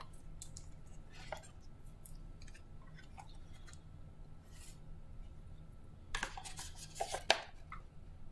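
A cardboard trading-card box is opened and its card packs handled: soft scrapes and taps, then a cluster of louder rustling about six seconds in.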